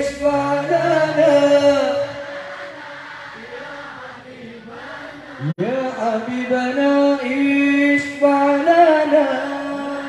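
A male solo voice singing sholawat, Islamic devotional verse, through a microphone and PA. It holds long notes with wavering ornaments, breaks off briefly about five and a half seconds in, then starts the next phrase.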